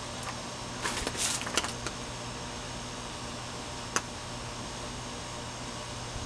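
1981 Casablanca CB-2444 Victorian ceiling fan running steadily, a low motor hum under a steady rush of air. A short cluster of rustling clicks comes about a second in, and a single sharp click near four seconds.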